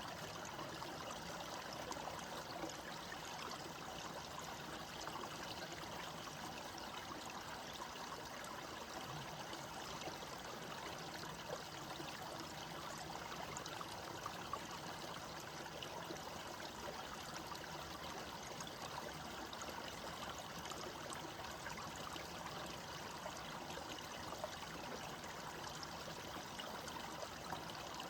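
A small stream flowing and trickling steadily, an even babble of running water.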